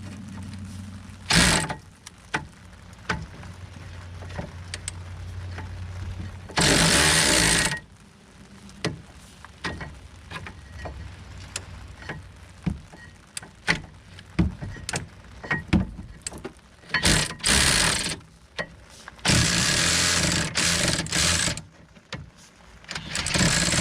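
Hand-tool work on rusty rear brake bolts: scattered metallic clicks and knocks from a ratchet and wrench, with several loud rushing bursts of a second or two.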